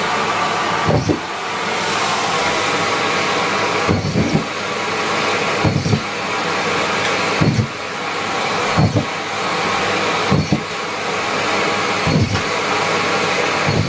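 Miele Complete C3 canister vacuum cleaner running steadily under suction, with a dull low thump about every one and a half to two seconds.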